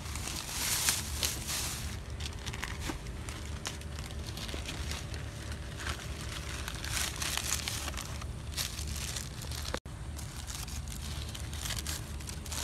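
Rustling and crackling over a steady low rumble, then, after a brief dropout about ten seconds in, a paper sandwich wrapper crinkling as it is unfolded by hand.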